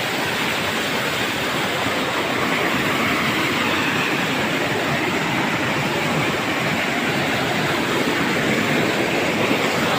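Waterfall pouring onto rocks close to the microphone: a loud, steady rush of falling water.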